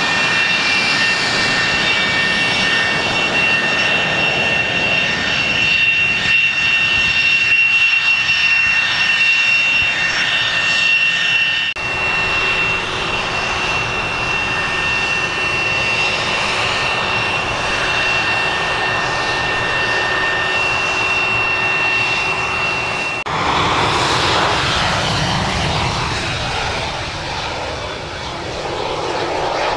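Jet engines of Douglas A-4 Skyhawks running, a loud rush with a steady high whine. The sound changes abruptly twice, about twelve and twenty-three seconds in.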